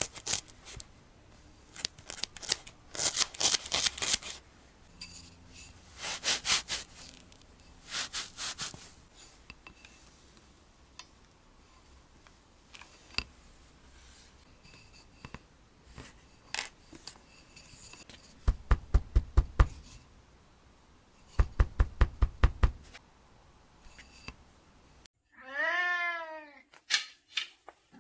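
Small scissors snipping the wool of a needle-felted cat head in short clusters of quick cuts, followed later by two quick runs of rapid, even taps. Near the end a cat meows, one full meow and the start of a second.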